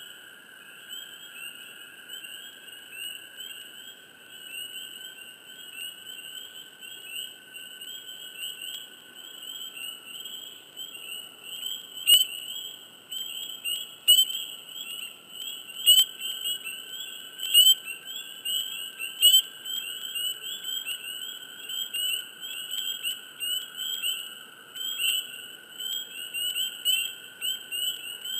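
Dense chorus of spring peepers, many short rising high peeps overlapping, over a steady lower toad trill that runs on without a break. From about halfway, single louder peeps from a close frog stand out every second or two.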